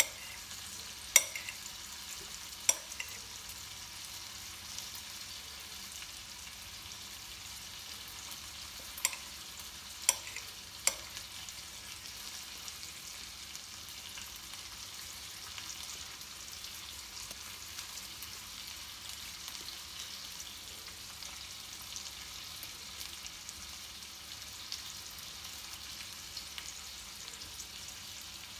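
Knife blade tapping against a ceramic bowl while an avocado is sliced, a few sharp clicks in the first eleven seconds, over a steady high hiss.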